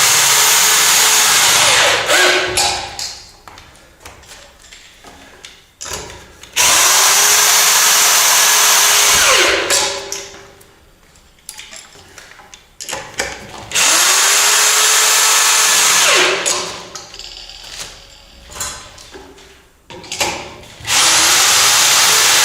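Powerful drill running nuts down the anchor studs to tighten a wooden floor joist, in four runs of a few seconds each, with quieter clicks and handling between them. The nuts press the washers into the wood.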